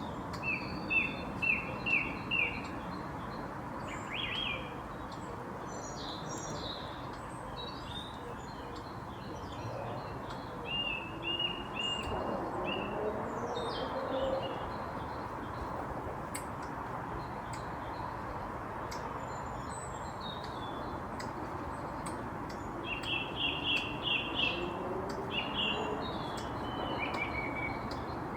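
Squirrel giving short, squeaky chirps in quick runs of four or five, about two a second, three times over, the hiccups it got from being startled. Scattered higher chirps and a steady outdoor hiss sit underneath.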